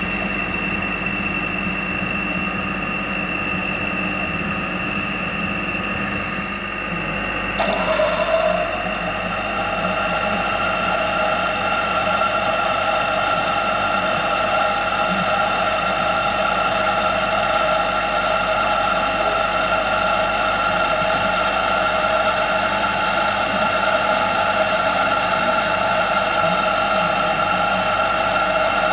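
A drilling machine's motor and spindle run steadily while drilling holes in the smoke box. About seven and a half seconds in, the sound changes abruptly to a slightly louder, lower steady hum.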